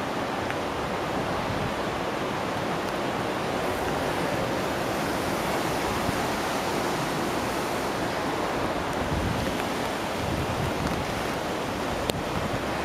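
River in flood, fast brown floodwater rushing steadily with a continuous hiss, with some wind buffeting the microphone.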